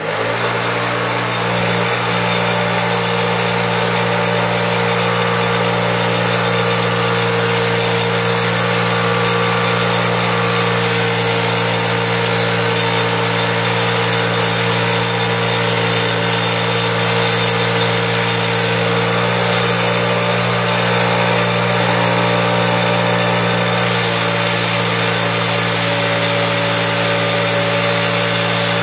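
Delta bench grinder running at full speed with a steady motor hum, a carbon-fouled engine valve held against its wire wheel so the bristles scrub the deposits off with a constant high hiss.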